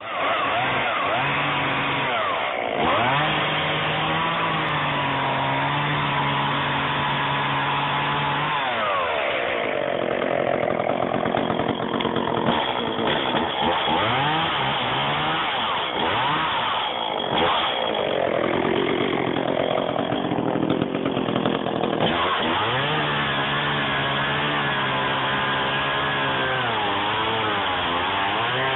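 Chainsaw running at high speed, cutting wood. It holds a steady high note at first and again near the end. Through the middle the note dips and wavers as the chain bites into the wood under load.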